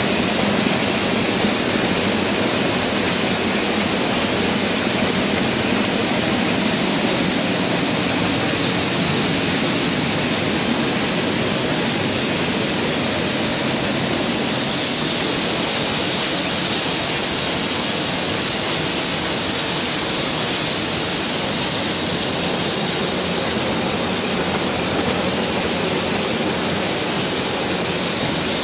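Vidhata maize sheller running: a loud, steady, even noise with much hiss and no rhythm or change.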